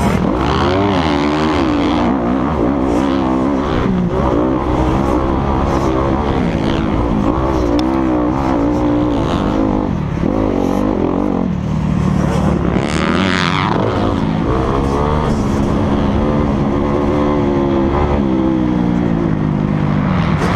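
Motocross dirt bike engine running hard, its pitch rising and falling over and over as the rider opens and closes the throttle, heard from a helmet-mounted camera.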